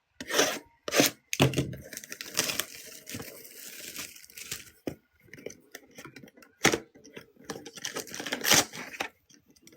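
Sealed trading-card packaging being ripped open and crinkled: a string of sharp tears and crackles of wrapping.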